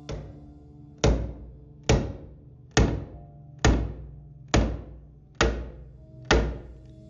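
A chisel being struck repeatedly, chopping a mortise into oak end grain: a light knock, then seven sharp, evenly spaced thunks about one a second. Background music plays underneath.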